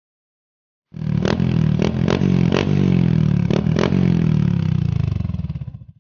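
Motorcycle engine running through an open 'chicken pipe' aftermarket exhaust for a sound test, starting abruptly about a second in, with six sharp pops or cracks in the first three seconds. Its pitch slowly falls and it fades out just before the end.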